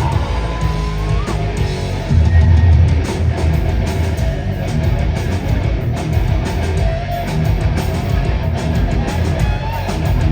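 Live heavy metal band playing an instrumental stretch: distorted electric guitars, bass and a pounding drum kit, with a lead guitar line high in the mix.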